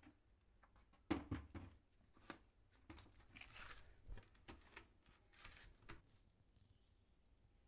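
A cat scratching and pawing at loose dry soil: a run of short, irregular scratchy rustles that starts about a second in and stops a little before the end.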